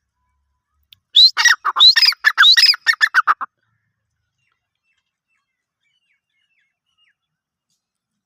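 Grey francolin calling, one loud series of about two and a half seconds: three upward-sweeping notes, then a quicker run of shorter notes.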